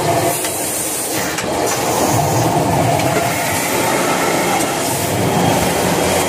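Automatic kitchen towel roll packing machinery running on a production line: a loud, steady mechanical din with no clear pauses.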